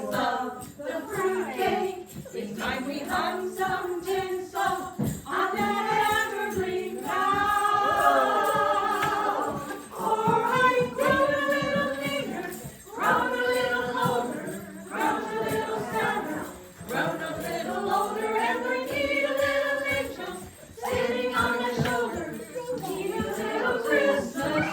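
Choir singing in phrases with brief breaks between them.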